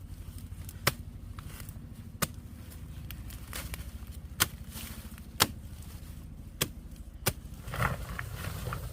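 Sharp, separate chopping strikes of a hand tool, about six of them at irregular gaps of one to two seconds, over a steady low hum.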